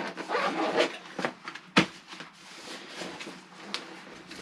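Hands rummaging in a fabric motorcycle bag, with irregular rustling and handling noises and one sharp knock a little under two seconds in.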